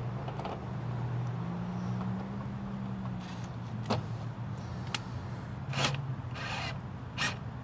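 A steady low hum, with a handful of short clicks and scraping rasps in the second half as a cordless drill-driver is set against a plastic sewer hose carrier and handled.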